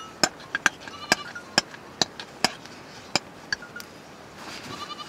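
A metal spoon clinking and knocking against a metal cooking pot as food is stirred: sharp, ringing clinks about twice a second, stopping a little before four seconds in. Near the end a short bleating call is heard.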